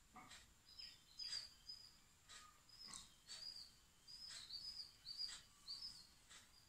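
Faint scratchy strokes of a pastel crayon rubbed back and forth on paper, with small birds chirping in short high notes.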